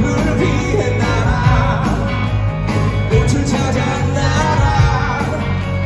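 Rock band playing live with a singer, full band with strong bass and drums.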